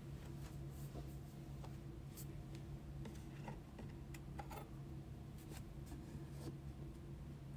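Faint handling sounds: light taps and rustles as trading cards and a cardboard card box are moved about on a table, over a steady low hum.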